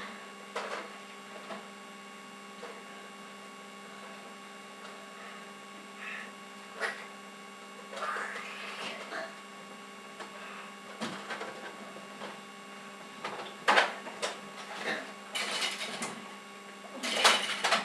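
A steady electrical hum, with scattered short knocks and rustling noises; the loudest come about two-thirds of the way through and near the end.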